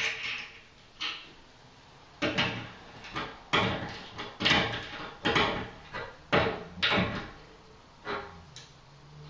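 An irregular run of about a dozen knocks and scrapes from handling the shower tray and screwing its adjustable legs into place, most of them bunched between about two and seven seconds in.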